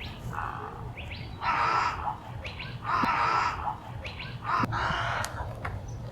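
Wild birds calling: about four harsh, rasping calls of half a second or so, with short rising chirps between them.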